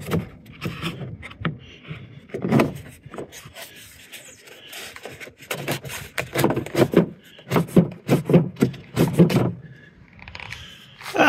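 Black plastic floor trim of a Club Car Precedent golf cart being tugged and flexed by hand, rubbing and scraping with a run of sharp clicks as its clip-like fasteners hold on. The clicking is busiest in the second half.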